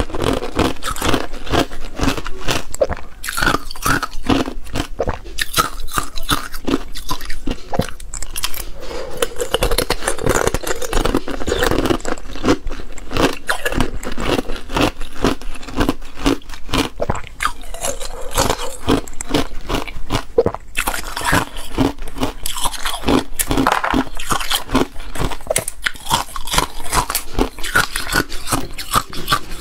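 Small hard ice cubes being bitten and chewed, a rapid run of sharp crunches and cracks that keeps on without pause.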